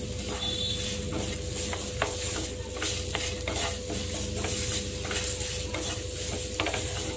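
Wooden spatula stirring and scraping chopped banana, grated coconut and fresh-added country sugar around a nonstick frying pan, with small repeated clicks and a light sizzle from the hot pan. The sugar and cardamom are being mixed through the fried banana and coconut.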